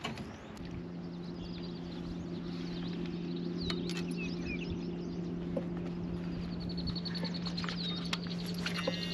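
A steady low hum starts about half a second in, after a click, and runs throughout, while birds chirp and trill over it with short calls and a rapid trill near the end.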